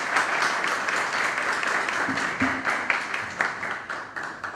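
Audience applauding in a hall, the clapping tapering off near the end.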